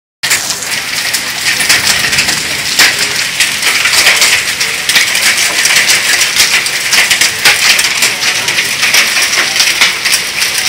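Heavy rain mixed with small hail, under quarter size: a steady rush of rain with many sharp ticks of hailstones striking.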